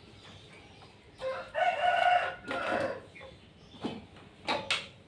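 A rooster crowing once, a drawn-out pitched call lasting about a second and a half, followed a little later by a few short sharp sounds.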